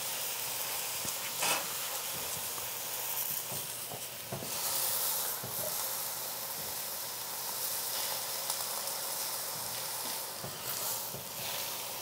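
Oyster mushrooms sizzling steadily in a dry cast iron pan with no oil, pressed under a second heavy cast iron pan as their own water cooks out. A couple of light knocks come through the sizzle.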